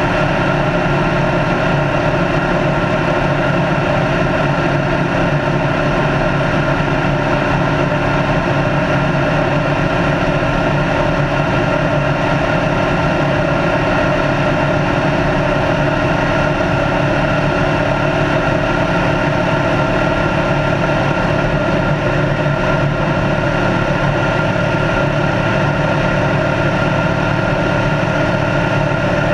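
A race car's engine running at a steady, unchanging speed at high road speed, with tyre and wind noise underneath; the pitch holds level throughout, with no shifts or revving.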